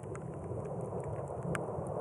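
Desert rainstorm: scattered raindrops ticking close by over a steady low rumble, with one sharper drop hit about a second and a half in.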